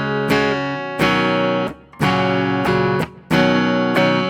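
ESP LTD EC-401 electric guitar played with a clean tone on its neck pickup, an EMG 60 active humbucker: chords strummed and left to ring, with a new chord struck about every half-second to second.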